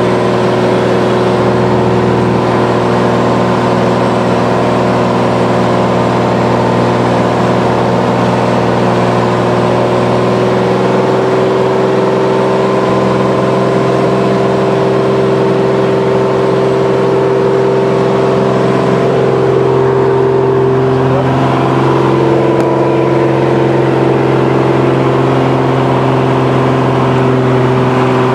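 Single piston engine and propeller of a 1948 Ryan Navion droning steadily, heard inside the cabin during the approach to land. The pitch shifts slightly about three-quarters of the way through.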